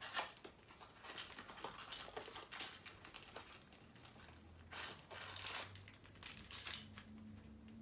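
Small cardboard box being opened by hand: irregular rustling, scraping and small clicks as the flaps are pulled open and the packed contents shift.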